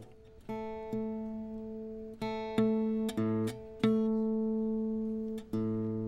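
Viola caipira being tuned: single strings plucked one at a time and left to ring out, about ten plucks, mostly repeating the same few notes as each string is brought to pitch.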